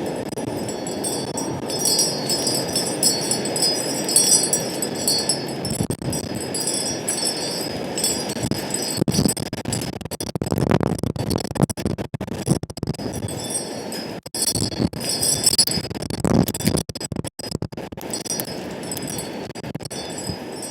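Metal wind chimes ringing and tinkling in gusty wind, over a steady rush of wind on the microphone.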